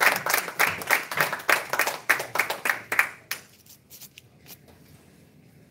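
Small audience applauding, the clapping dying away about three seconds in, with a few last scattered claps after.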